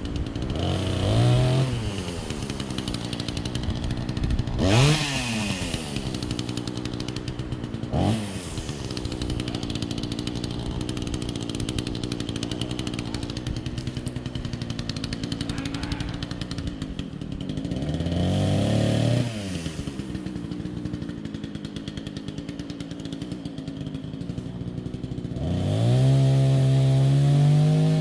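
Craftsman S205 46cc two-stroke chainsaw idling and revved up and down several times, then held at high speed for a couple of seconds near the end.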